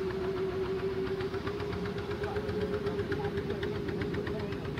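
Engine of a covered passenger boat crossing the lake, running steadily with a level hum and a fast, even knocking.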